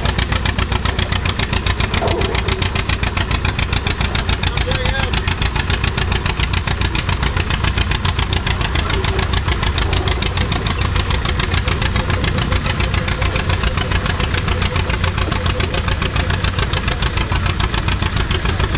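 Antique John Deere tractor's two-cylinder engine working hard under load as it pulls a weight-transfer sled, its exhaust a rapid, even beat.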